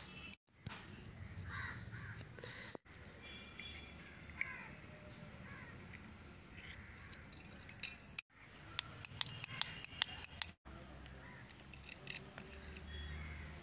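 Light metallic clicks and taps of a screwdriver and small parts on a scooter carburettor being reassembled by hand, with a quick run of clicks past the middle. Birds call a few times in the background.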